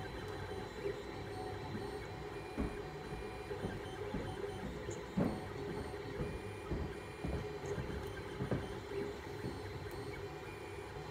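FDM 3D printer running mid-print: its stepper motors hum and whine in steady tones as the print head moves over the part, with a few short knocks.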